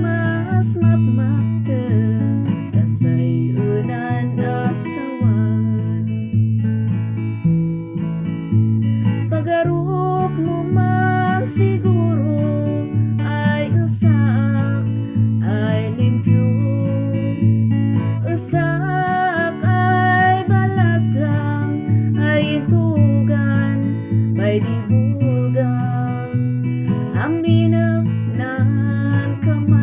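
Background music led by acoustic guitar, with a steady bass and a melody line running continuously.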